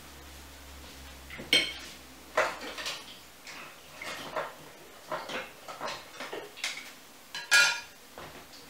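Kitchen utensils clinking and knocking against a glass mixing bowl and other dishes, with a sharp ringing clink about a second and a half in, another near the end, and lighter knocks between.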